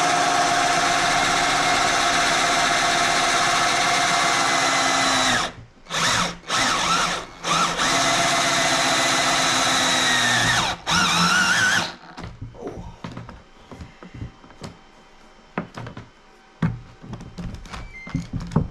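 Electric drill motor running at a steady speed for about five seconds, then stopping and restarting in a few short runs, with a longer run that ends about twelve seconds in. After that come only light clicks and knocks of handling.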